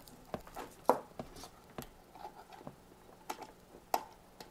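Scattered light clicks and small knocks of hands handling the radio gear as the receiver's antenna feed is switched from a dipole to a mini whip active antenna. The sharpest clicks come about a second in and again near the end, over a faint steady hum.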